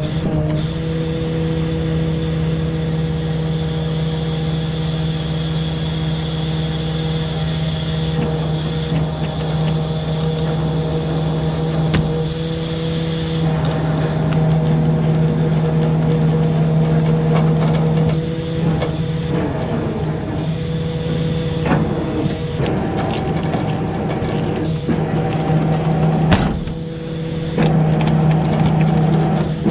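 A tow truck's engine and hydraulic winch running steadily as the winch cable pulls a car up out of a ditch. Scattered knocks and clicks come in over the second half, and the level dips briefly near the end.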